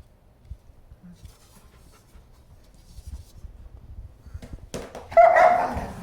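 German Shepherd dog giving one loud bark about five seconds in, after a stretch of faint low knocks.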